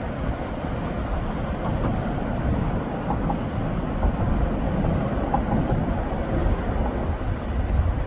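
Wind buffeting the microphone: a gusty low rumble over a steady rushing hiss.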